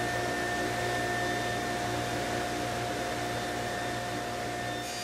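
Table saw spinning a 3/4-inch dado stack, a steady whine over a steady hiss, set up to cut a rabbet in plywood cabinet panels. Music comes in near the end.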